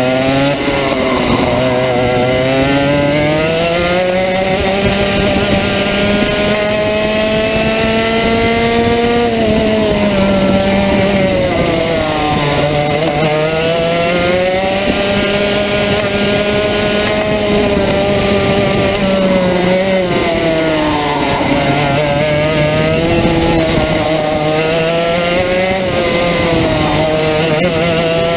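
Rotax Max 125cc two-stroke kart engine heard from onboard at racing speed. Its pitch climbs for several seconds at a time and drops sharply twice as the kart slows, then climbs again.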